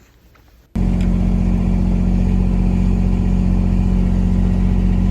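A farm vehicle's engine running steadily at an even pitch, cutting in abruptly under a second in after near quiet.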